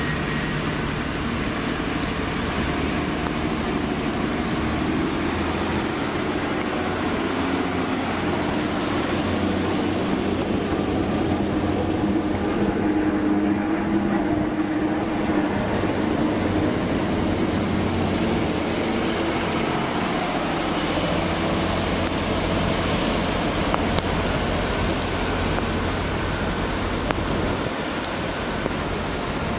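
Diesel train engine running at a steady level. A thin high squeal rises over it partway through and then fades, and another comes in later.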